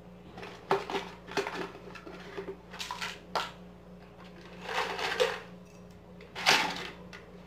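Small pieces of fishing tackle clicking and rattling in a plastic jar as they are put in and handled: a run of light clicks, then louder rattles about five and six and a half seconds in, over a faint steady hum.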